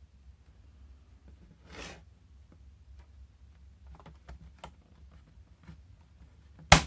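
Small clicks and a brief scrape of a screwdriver prying at a laptop's plastic case, then a sharp, loud snap near the end as a case clip pops loose.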